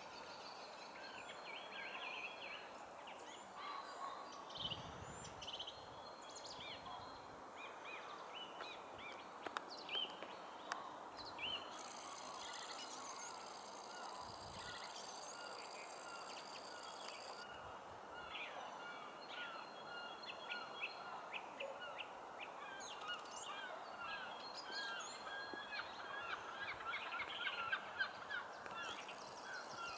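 Winter dawn chorus: many birds calling and singing in short overlapping chirps and phrases over a steady background hiss. In the second half a denser run of rapid repeated calls comes in, growing louder near the end.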